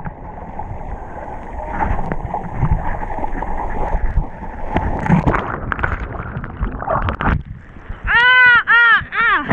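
Sea water sloshing and splashing against an action camera held at the surface among small breaking waves, with scattered knocks on the housing. About eight seconds in come four short, high calls, each rising then falling in pitch, louder than the water.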